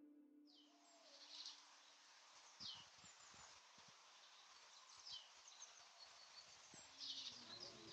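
Faint outdoor ambience: small birds chirping in short, high, downward-sliding calls every second or two over a soft steady hiss.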